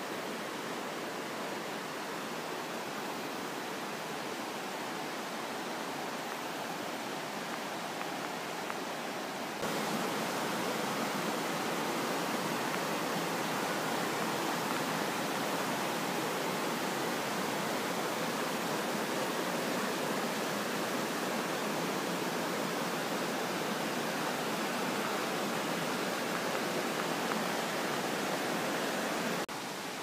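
Steady rush of falling and running water from a waterfall and the rocky mountain stream below it. It gets suddenly louder about ten seconds in and drops back just before the end.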